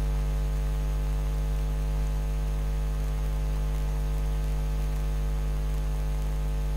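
Steady electrical mains hum with many overtones, unchanging throughout.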